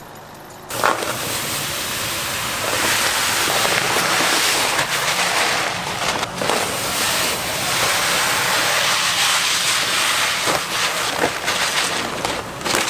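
Dry rice grains pouring from paper sacks into a large stainless steel tank: a steady rushing hiss that starts suddenly about a second in, with two brief dips.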